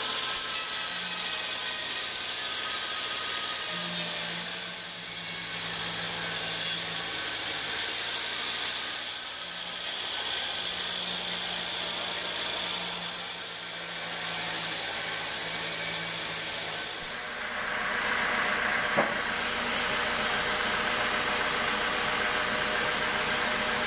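Homemade band sawmill blade ripping through a teak log: a steady hiss that swells and eases every few seconds over the low hum of the machine. Near the end it gives way to a steadier machinery drone, with one sharp knock.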